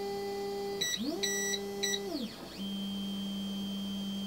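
Voxelab Proxima 6 resin printer's Z-axis stepper motor driving the build plate back to its home position: a whine that rises in pitch, holds and winds down about two seconds in, then a lower steady hum to the end. Three short electronic beeps from the printer sound between about one and two seconds in.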